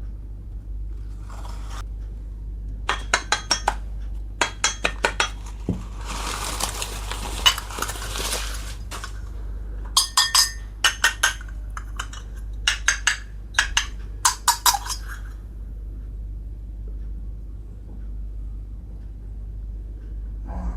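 Miniature toy kitchenware pieces clinking and tapping together as they are handled, in quick clusters of small sharp clicks, with a stretch of rustling a few seconds in. A low hum sits underneath.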